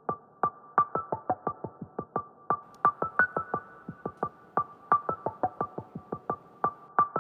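Background music: a quick, even run of short, clipped keyboard-like notes, about five a second.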